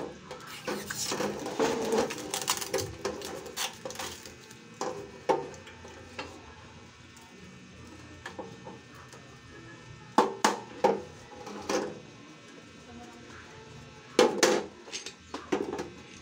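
Sheet-metal clanks and rattles from a portable gas stove being handled and turned over on a hard tabletop. The knocks come in irregular bursts with quieter gaps between them.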